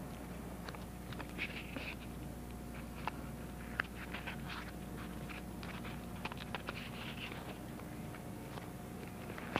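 Paper tape and a cardboard cutout rustling and crinkling as hands press and smooth the tape along the edge of a folded cardboard puppet hand, with scattered small clicks and taps.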